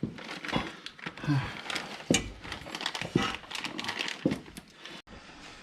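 Light clicking, rustling and clattering of tools and parts being handled and rummaged through, with no drill running.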